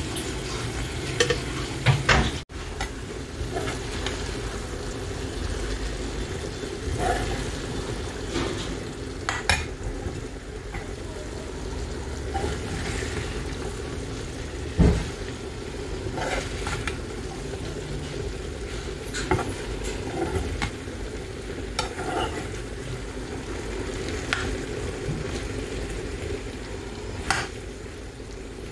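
Chickpeas and potato frying with a steady sizzle in a shallow pan, stirred with a metal ladle that scrapes and clinks against the pan, with one louder knock about halfway through.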